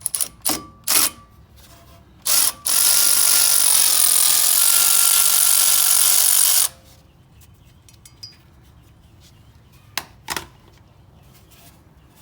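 A power drill/driver run in a few short trigger bursts, then steadily for about four seconds, then in two more short bursts near the end. It is backing out the Phillips-head screw that holds the brake rotor to the hub.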